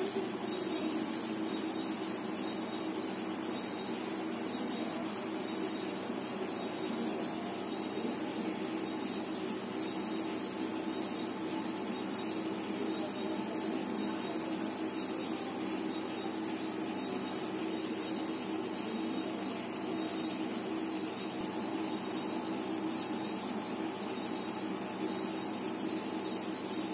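Steady, high-pitched chorus of night insects trilling without a break, over a faint steady low hum.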